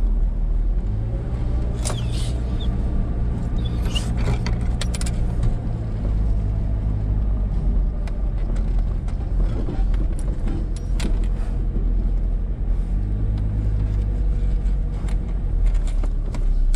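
A car's engine and tyres heard from inside the cabin while driving slowly: a steady low hum, with a few sharp clicks and rattles.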